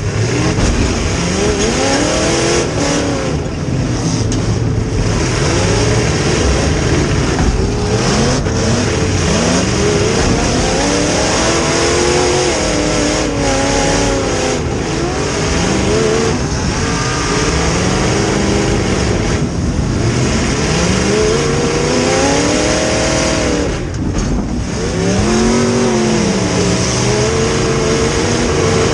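Demolition derby car's rear-mounted V8 engine, heard from inside the stripped car, revving up and dropping back over and over as the car is driven around.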